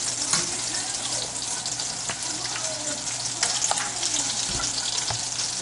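Chopped onion sizzling in meat drippings in a skillet, with a metal utensil scraping and clicking against the pan.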